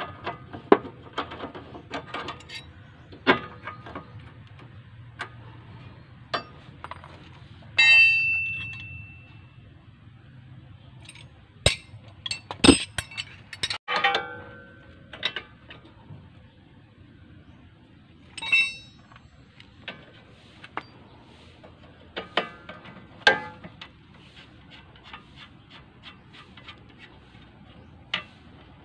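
Steel wrenches clinking and clanking against the bolts and body of a front suspension strut, with sharp metal knocks throughout. A loud ringing clang comes about eight seconds in and a shorter ring near the middle.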